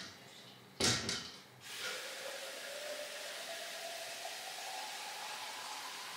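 A sharp knock, then water running into a plastic cup for about four seconds, a faint tone in the splash slowly rising in pitch as the cup fills.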